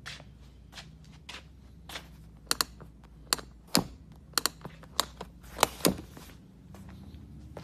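About a dozen sharp, irregular taps and clicks, some in quick pairs, the loudest near the middle and about six seconds in, like footsteps and handling on a concrete floor. A steady low hum runs underneath.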